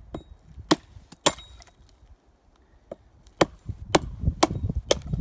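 Axe chopping into sap-soaked pine wood: a few sharp chops in the first second and a half, a short pause, then a run of chops about half a second apart.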